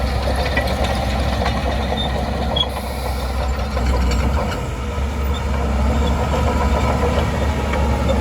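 Shantui DH17C2 crawler bulldozer's diesel engine running steadily, with a few faint clicks over it.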